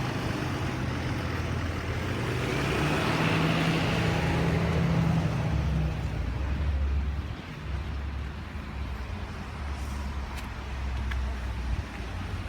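Street traffic: a motor vehicle's engine running steadily, with the noise of a passing vehicle swelling about three to five seconds in and then fading.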